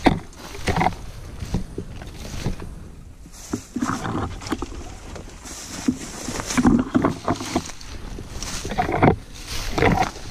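Pushing on foot through dense, dry, leafless brush: branches scraping and swishing against clothing and dry grass and twigs crunching underfoot, in irregular bursts.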